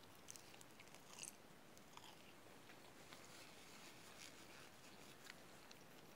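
Faint chewing of a mouthful of french fries, mouth closed, with a few soft, scattered clicks of the mouth.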